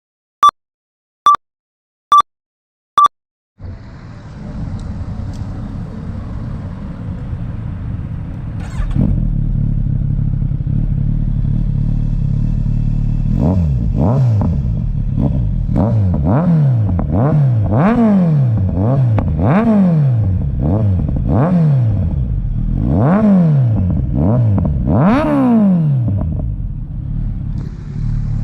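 Four short electronic beeps, then the Kawasaki Ninja 1000's inline-four engine starts about three and a half seconds in and idles through an SC-Project SC1-R aftermarket exhaust. From about halfway it is revved in a series of quick throttle blips, each rising and falling, and it settles back to idle near the end.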